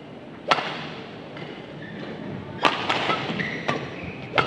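Badminton racket strikes on a shuttlecock as a rally is played: a sharp serve hit about half a second in, then several more crisp hits and footfalls on the court, the last near the end.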